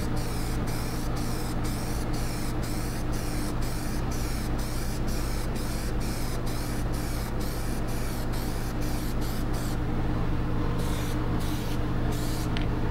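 Aerosol can of black Plasti Dip spraying a coat in rapid short bursts, about three a second, with a brief pause about ten seconds in and more irregular bursts near the end.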